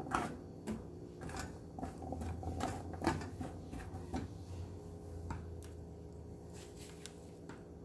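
Hand tossing diced potato cubes on a plastic cutting board: quick soft taps and clicks of the cubes against the board and each other, busiest over the first four seconds, then a few scattered taps.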